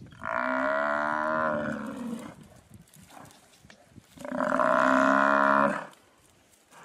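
Cape buffalo bellowing twice in distress while lions attack it. Each call is long and steady: the first lasts about two seconds, the second about a second and a half, beginning a couple of seconds after the first ends.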